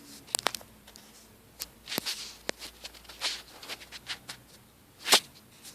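A man's violent hiccups: sharp, sudden jolts at irregular intervals, the loudest about five seconds in, with softer clicks between them.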